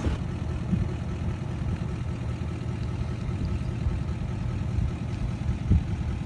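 Pickup truck engine idling steadily with a low rumble.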